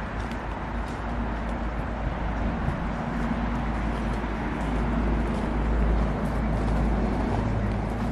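Car driving: steady road and engine noise with a deep, constant rumble.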